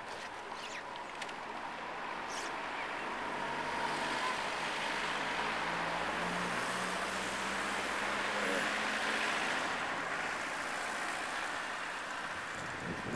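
A road vehicle passing on the street, its engine hum and tyre noise swelling over several seconds and then slowly fading.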